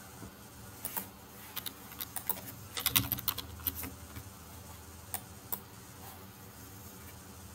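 Computer keyboard and mouse clicks: a quick cluster of key taps about two to four seconds in, with single mouse clicks before and after, over faint steady background hum.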